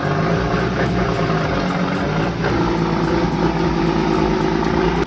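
Heavy vehicle engine running loudly under load. Its pitch shifts about halfway through, and the sound cuts off suddenly at the end.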